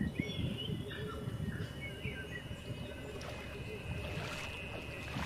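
Wind rumbling on the microphone, with a few faint bird chirps and a thin steady high tone.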